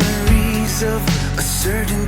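Background music: a song with a sung melody over instruments.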